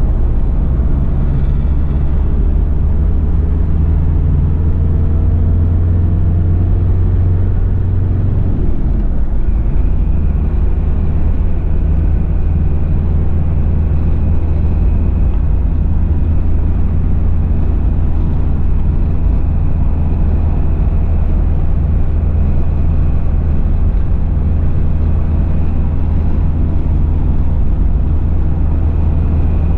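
Cabin sound of a Toyota Land Cruiser Prado LJ78's 2.4-litre four-cylinder turbo diesel under way. The engine note climbs for about eight seconds, then drops sharply, as at an upshift of the five-speed manual, and settles into a steady cruising drone. A faint high steady whistle runs on after the drop.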